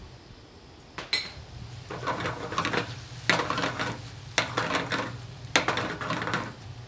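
A utensil knocks once against a pan, then stirs and scrapes through a reducing wine sauce in four strokes about a second apart.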